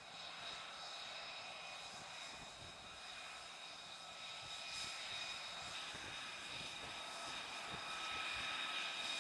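An F-35B's Pratt & Whitney F135 jet engine running at low power, a steady high-pitched whine, growing slightly louder toward the end.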